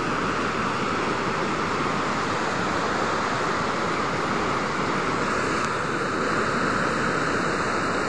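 Floodwater of a swollen, muddy river rushing over rocks: a steady, unbroken rush of fast water.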